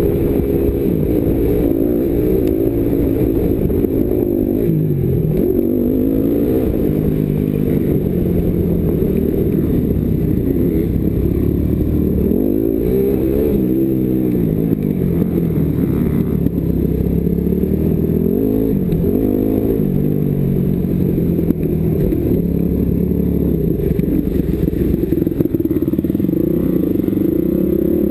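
Motocross bike engine revving up and falling back again and again as it is ridden around a dirt track, heard from the rider's helmet camera. The sound is muffled, with little above the engine's low notes.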